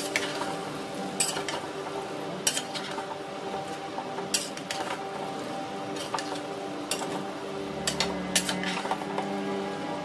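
A spatula stirring chunks of jackfruit and potato in a steaming pot of curry, scraping and knocking against the pan at uneven intervals, several times over, with a light sizzle underneath.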